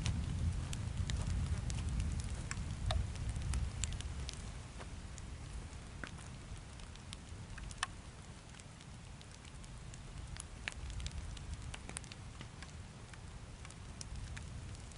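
Sparse crackling clicks and rustling over a low rumble, the rumble louder in the first few seconds.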